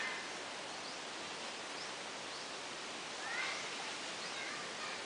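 Steady outdoor background hiss with a few faint short bird chirps, the clearest about three and a half seconds in.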